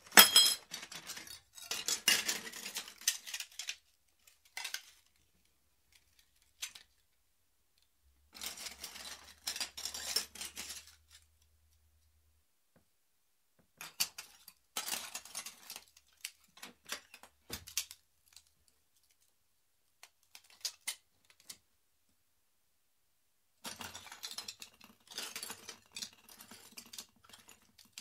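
Broken glass shards being stirred and shuffled, clinking and scraping against one another in several bursts of a few seconds with silent pauses between them.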